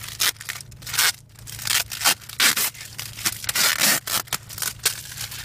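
White plastic courier mailer being ripped and pulled open by hand: a string of irregular rasping rips and rustles of plastic film.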